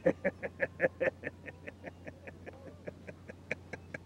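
A man laughing: a long run of short "ha" bursts, about five a second, loudest at the start and tailing off.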